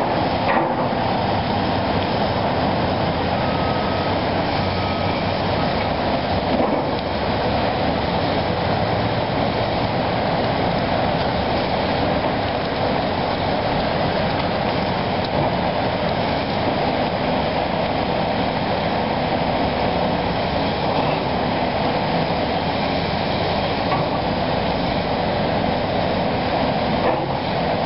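Tracked hydraulic excavator running at working speed, its diesel engine and hydraulics giving a steady, unbroken noise as it works its bucket along a brick wall.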